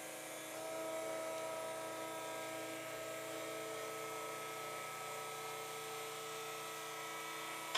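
Electric lift motor of a motorized chiropractic table running steadily with an even hum, raising the table with the patient on it.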